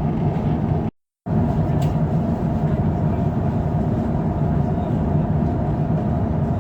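Airbus A350-900 jet engines running with a steady low rumble. The sound cuts out for a moment about a second in.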